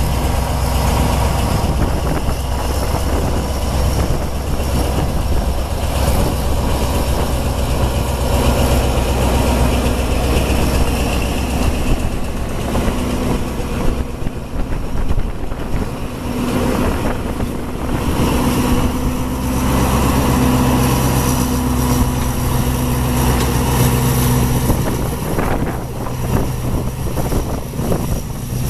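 Alsthom AD24C diesel-electric locomotive running past slowly, its diesel engine a loud low steady drone. About halfway through, the drone eases as the locomotive draws away, and the passenger coaches roll by with their wheels clicking and knocking over the rail joints.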